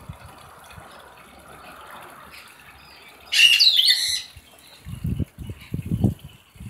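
A loud, high bird call a little over three seconds in, lasting about a second, its pitch sweeping down, over a soft steady hiss. From about five seconds in, wind buffets the microphone in low, uneven rumbles.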